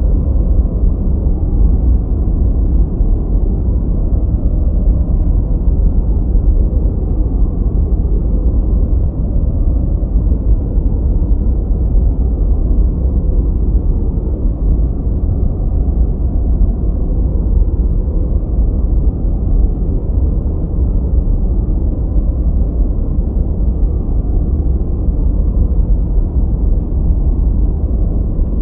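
Continuous, steady, deep noise with no rhythm, tone or events, heavy in the low end and muffled, with nothing bright on top: a low, brown-noise style 'white noise' track for studying.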